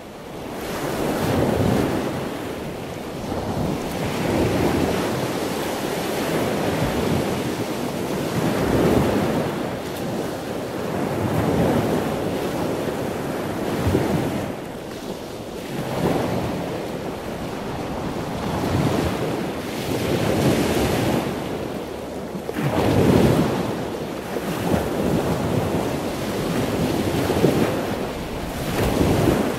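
Rushing noise of wind and water, swelling and easing every couple of seconds, with no engine tone standing out.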